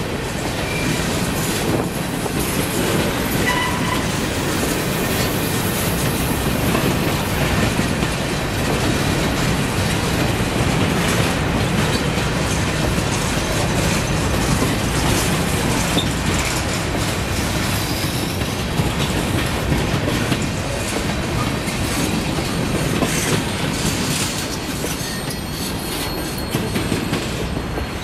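Covered hopper cars of a freight train rolling past, wheels clattering over the rail joints in a steady run, easing off a little as the last car goes by near the end.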